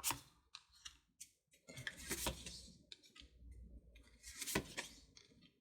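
Tarot cards being handled and laid out on a table: soft rustling and sliding, with about three sharp clicks spread through it.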